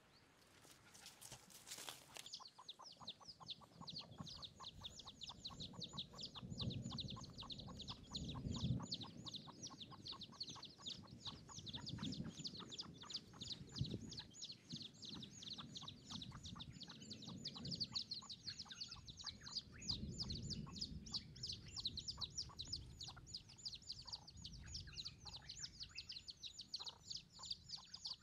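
A wild chicken clucking softly and low every few seconds over a fast, even run of high chirping. A brief rustle comes at the very start.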